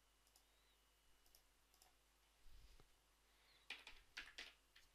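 Faint computer mouse clicks and keyboard keystrokes. A few single clicks come first, then a quick run of four or five keystrokes about three and a half seconds in.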